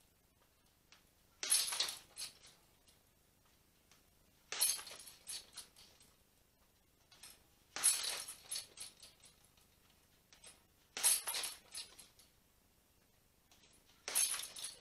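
A hanging heavy punching bag struck by a boxing glove five times, about every three seconds, in a jab-then-cross drill. Each hit is followed by about a second of metallic jangling from the bag's hanging chains as the bag swings.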